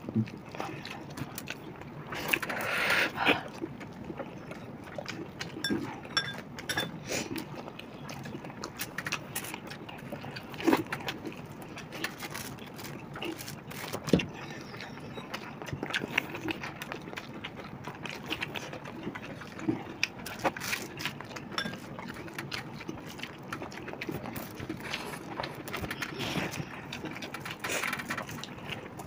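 People eating biryani by hand: steady chewing and wet lip-smacking, with many small clicks and rustles as rice is scooped from the tray and pushed into the mouth.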